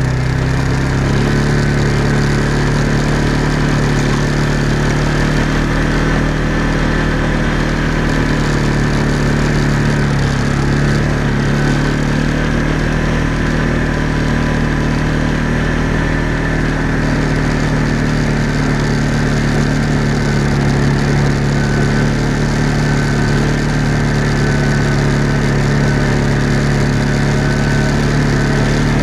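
Off-road vehicle's engine running steadily while it drives along a rough trail, its pitch rising slightly about a second in.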